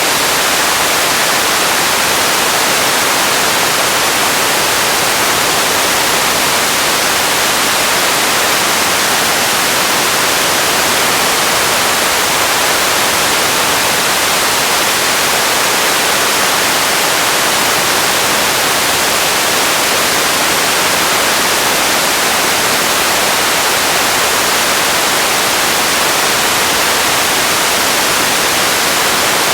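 Radio static: a steady, loud hiss, heaviest in the treble and thin in the bass, with no tones, voices or breaks.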